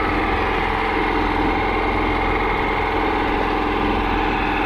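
Engine on a small fishing boat running steadily at an even pitch and level.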